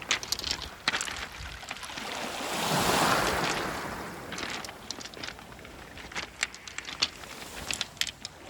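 Surf washing over a pebble beach, a wave swelling to its loudest about three seconds in and then falling away, with sharp clicks of stones knocking together throughout.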